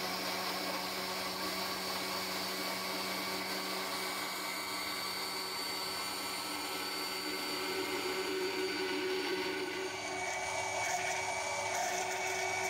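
Electric jug blender motor running steadily, blending mango, milk and sugar into a liquid shake.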